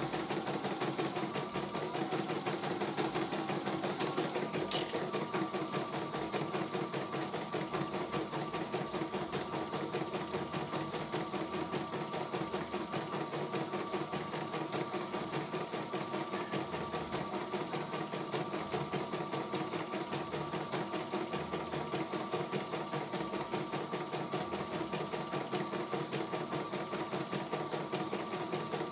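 A CNY E900 computerized embroidery machine stitching a design in its hoop. The needle runs at a fast, even rate with no pauses.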